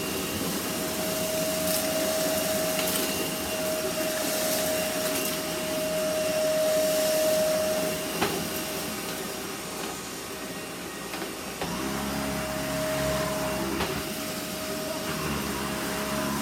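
Kenmore Progressive IntelliClean vacuum cleaner running steadily with a high motor whine. There is a single click about eight seconds in, and about twelve seconds in the sound turns deeper and rougher as a low hum joins it.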